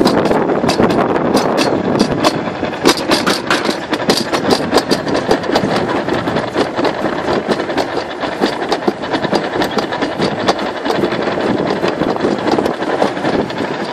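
Summer toboggan sled running down its slide track: a steady rumbling with frequent rattling clicks throughout.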